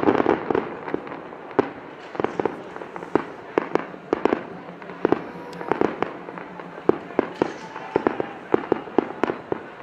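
Fireworks display: aerial shells bursting in rapid, irregular succession of sharp bangs, with a dense, loud cluster of reports at the start.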